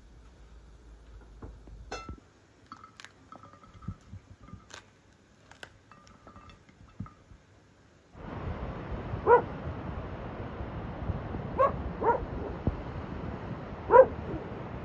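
Light scattered clicks and clinks at first. About halfway through, a steady hiss comes in, and a dog barks four times, single short barks with two close together, the last the loudest.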